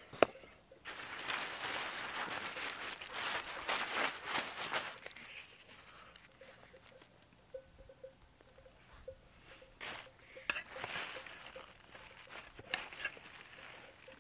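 Rustling and crinkling handling noise close to the microphone, with a sharp click just after the start. It dies down for a few seconds in the middle and picks up again near the end.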